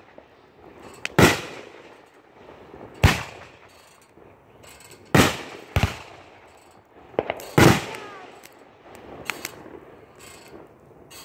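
Aerial fireworks shells bursting overhead: about five loud bangs a second or two apart, each trailing off in a short echo, then a couple of quieter pops near the end.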